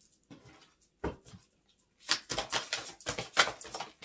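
Playing or oracle cards being handled: a few soft rustles, then about two seconds of rapid crackling clicks as the deck is shuffled.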